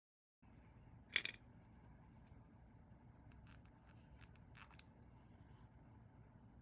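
A few sharp clicks and light taps of small hard objects being handled, over faint room noise. The loudest is a quick double click about a second in, and a smaller pair comes past the middle.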